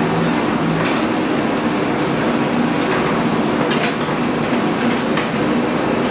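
JCB earthmoving machine's diesel engine running steadily under work, with a few sharp clicks and knocks from its moving metal parts.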